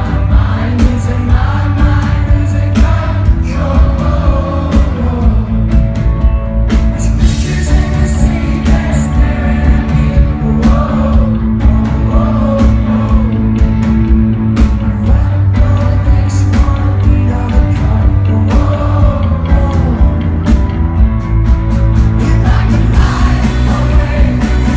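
Live rock band performing, with a lead vocal sung over regular drum hits and a heavy, steady low end.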